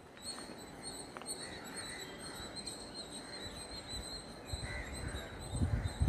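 Quiet outdoor ambience: faint bird chirps over a thin, steady high-pitched tone, with low rumbling setting in near the end.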